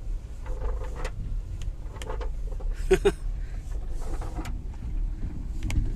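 Hyundai i20 cabin on the move, low road rumble with a few irregular short sliding knocks and rattles from a small loose battery cell shifting about on the floor, the body noise that had puzzled the technicians.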